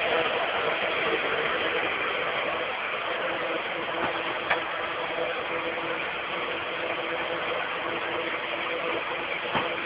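Steady whirring hum of a running motor with a faint pitched drone, and a light knock about halfway through and another near the end.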